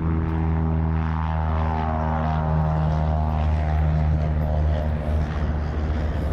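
Light piston-engine propeller airplane running, a steady drone whose pitch sinks slightly over the first few seconds.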